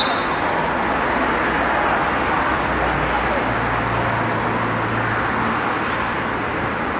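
Steady outdoor background noise with distant voices, and a low engine hum that comes in a few seconds in and fades near the end.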